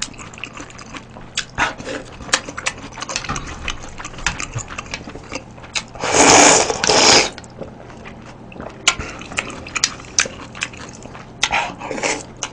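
Close-up eating sounds: wet chewing and lip smacks with small clicks, then two loud slurps about six to seven seconds in as noodles and broth are sucked from a bowl tipped to the mouth, and a shorter slurp near the end.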